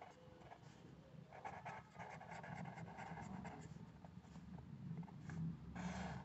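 Faint scratching of a pen writing a word on ruled notebook paper in many short strokes, then one longer stroke near the end as the word is underlined.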